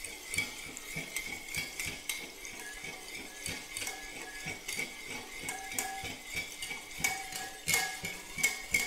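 Wire whisk clinking and scraping against a glass bowl while whisking custard powder, sugar and water into a lump-free mix: a quick, uneven run of clinks, each with a short ring.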